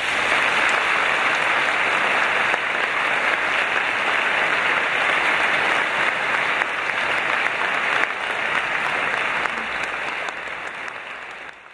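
A large seated audience applauding steadily, the clapping fading away over the last couple of seconds.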